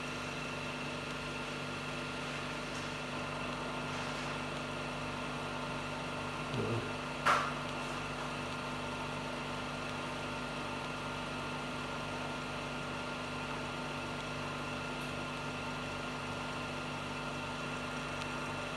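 INFICON Protec P3000 helium leak detector running: a steady machine hum with several steady tones. A short knock comes about seven seconds in.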